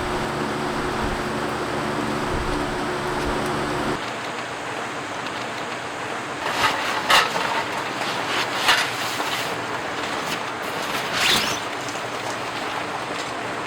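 Steady rain hiss, with a low steady hum under it for the first few seconds that cuts off suddenly about four seconds in. After that the rain goes on, with a few short knocks and clatters.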